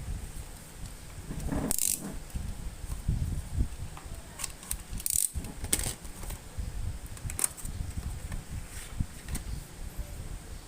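Scattered light clicks and small metallic rattles of laptop parts and tools being handled during repair, over a low rumble.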